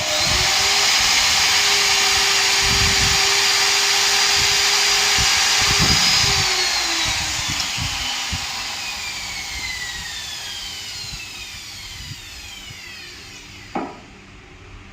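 Electric power tool running at steady speed, then switched off and spinning down, its pitch falling slowly over several seconds. A single knock near the end.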